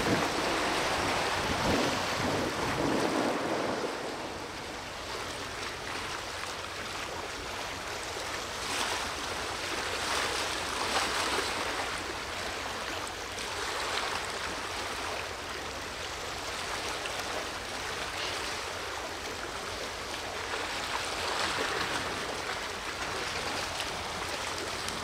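Sea water washing and breaking along the shore in a steady hiss that swells now and then, with wind rumbling on the microphone in the first few seconds.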